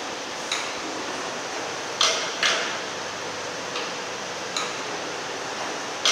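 1906 Louis Smulders & Co horizontal steam engine running, a steady mechanical noise broken by sharp metallic clicks from its moving parts, about six in a few seconds at uneven spacing, the loudest a pair about two seconds in.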